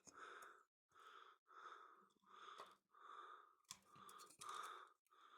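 Faint, quick, even breathing close to the microphone: a steady run of short soft breaths, in and out.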